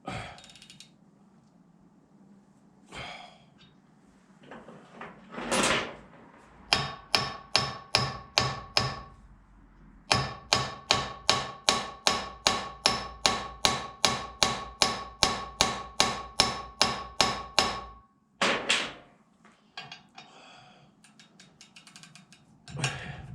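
Rapid hammer blows on ringing steel, about four a second: a run of about ten, then after a short break a longer run of about thirty. Hammering on a hub puller under heavy load, trying to shock a seized rear hub off its half shaft.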